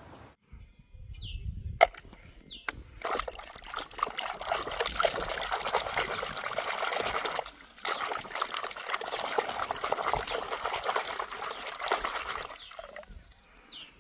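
A sharp click, then water pouring and splashing for about ten seconds, with a brief break about halfway through.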